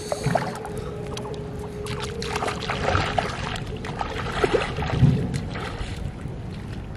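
Bare feet wading through shallow river water, sloshing and splashing, with the loudest splash about five seconds in. A faint steady tone sounds for the first three seconds.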